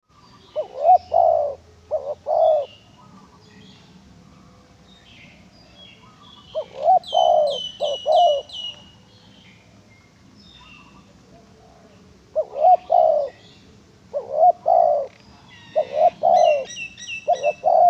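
Female spotted dove cooing in repeated phrases of several low coos, a few seconds apart. Twice a small bird adds a quick run of high chirps over the top.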